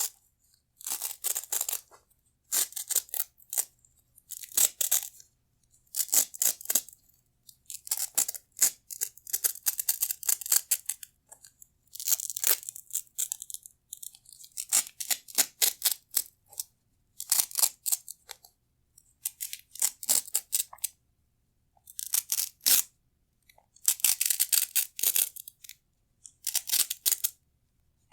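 Crunchy, crackling rasps of Velcro hook-and-loop straps as a strap is wrapped around other Velcro straps, about fourteen separate rasps each lasting up to a second or so, with short silences between.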